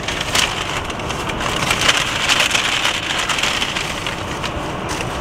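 Paper fast-food bag and foil-lined burger wrappers rustling and crinkling as the food is unpacked: a dense crackle of small clicks that is loudest in the middle.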